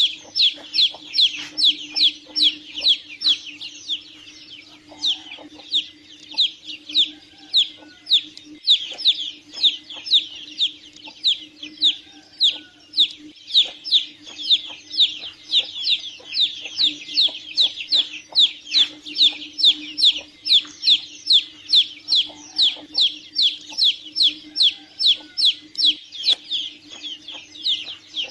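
Domestic chicks peeping continuously: short, high, downward-sliding peeps repeated several times a second without a break, over a steady low hum.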